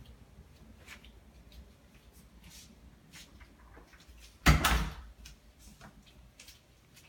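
A single loud thump about four and a half seconds in, among faint scattered clicks and rustles.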